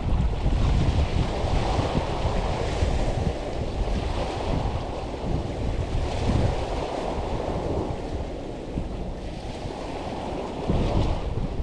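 Wind buffeting the microphone, with waves washing on the shore behind it.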